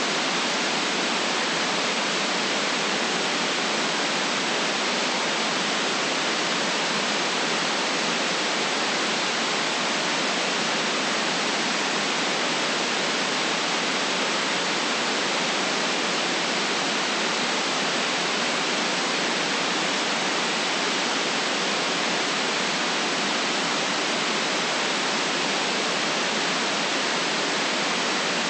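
Steady white noise: an even, unchanging hiss with no rise, fall or separate sounds in it.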